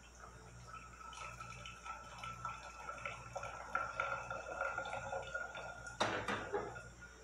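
Hot water poured from a pan through a cloth coffee filter, the coffee trickling into a thermos with a steady filling tone. A single clank about six seconds in as the pan is set down on the stove.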